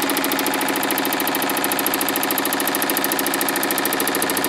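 Sheet-metal power hammer with a beading die, locked in rigid mode on a short stroke, hammering a bead line into sheet steel in a fast, even stream of small blows.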